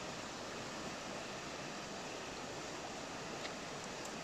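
Steady rushing of a fast-flowing, swollen river.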